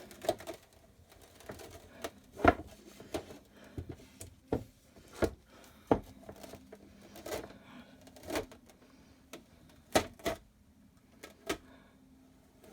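Scattered light clicks and taps, roughly one a second with a sharper knock about two and a half seconds in, as an adhesive chalk-paste transfer is peeled off its board and handled, over a faint steady hum.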